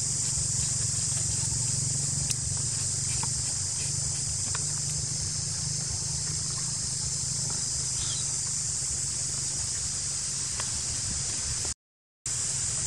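Steady, high-pitched drone of insects over a low steady hum, with a few faint scattered ticks. The sound drops out completely for about half a second near the end.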